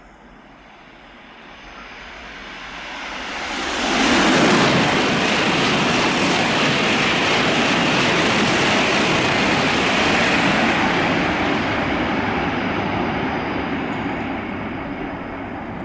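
Shinkansen bullet train running through the station at speed without stopping: a rising approach, a sudden rush of noise about four seconds in, a steady loud wash of noise for several seconds, then a slow fade near the end.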